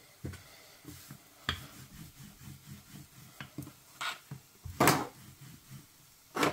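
Kitchen handling sounds: a wooden rolling pin rubbing and thudding softly over paratha dough on a board, broken by several sharp clacks of metal tongs and the rolling pin being set down on the countertop. The loudest clack comes just under five seconds in.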